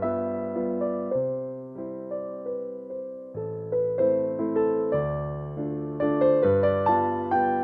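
Background music played on piano: a melody of struck notes over low bass notes that change about once a second.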